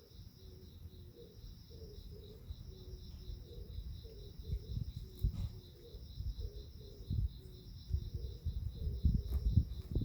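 Crickets chirping in a steady, rapidly pulsed trill. Irregular low rustles and soft thumps join in and grow louder and more frequent from about four seconds in.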